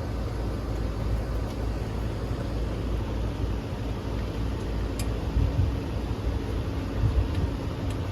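Bryant air-conditioning condensing unit running steadily, its fan and compressor giving a low even hum while the system is being checked under load, with a small click about five seconds in.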